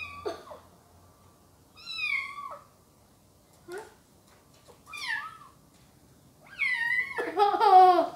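Ginger kitten meowing repeatedly, with short cries a second or two apart and the loudest calls coming close together near the end.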